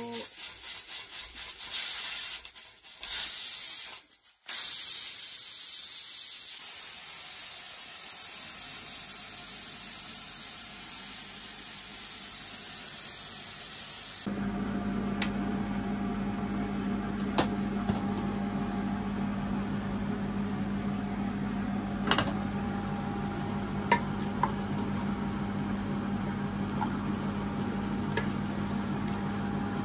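Steam hissing out of an Al Safa Sony aluminium pressure cooker's vent as the pressure is let off after cooking. The hiss is loud at first with two brief breaks, then fades. After a cut, a steady low hum with a few light knocks as a wooden spoon stirs inside the open cooker.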